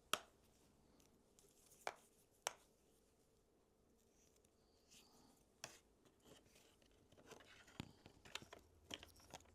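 Faint clicks and knocks of a motorcycle turn signal and its plastic bracket being handled and pushed into place: a few single sharp clicks, then a run of small clicks and rustles near the end.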